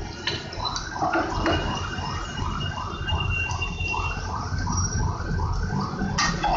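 Papri dough rounds frying in ghee in a pan, the oil bubbling and sizzling. Through most of it there is a steady rhythmic warbling pulse, about two and a half a second, that starts about a second in and stops just before the end.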